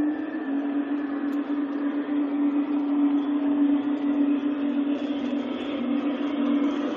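LGB G-scale model trains running on the layout: a steady motor-and-gear hum with the rattle of wheels on the rails, slowly getting louder as a model electric locomotive hauling coaches approaches.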